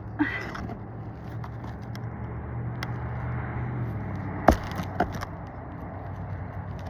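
Roof snake working under a three-tab asphalt shingle to get at a nail that has ripped through it: a few sharp knocks and clicks, the loudest about four and a half seconds in and another half a second later, over a steady low rumble.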